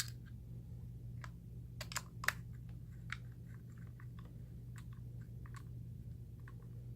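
Small scattered plastic clicks and ticks as a Torx T6 screwdriver drives the bottom screws into a Nuance PowerMic II's plastic case. The sharpest clicks come in a cluster around two seconds in, and fainter ones follow.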